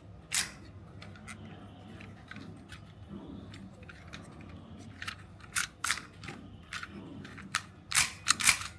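Plastic toy pistol's slide and action being worked by hand, giving sharp plastic clicks. There is one loud click near the start, a few faint ticks, then louder clicks coming closer together toward the end as the reassembled mechanism cycles.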